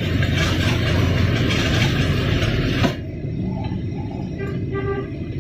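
Metal-cutting machine cutting with a loud hiss and crackle that stops sharply with a click about three seconds in. A lower, steady rumble carries on after it.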